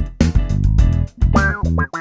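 Hohner D6 Clavinet played in short, choppy funk notes. From about halfway in, the notes take on a sweeping, quacking wah tone from an envelope filter.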